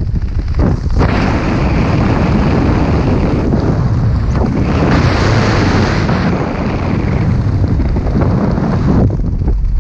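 Wind blasting across a skydiver's head-mounted camera microphone during canopy flight under an open parachute: a loud, steady low rush that thins out briefly a few times.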